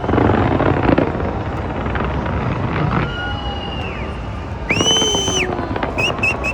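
Fireworks going off in a dense rumble of booms and cracks, loudest in the first second. A long high whistling tone sounds about five seconds in, and shorter whistles come near the end.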